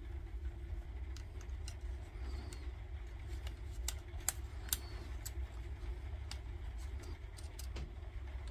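Scattered small clicks and ticks of fingers bending the thin metal connector tabs on a replacement circuit board in a Makita 18 V battery and handling its plastic case, over a steady low rumble.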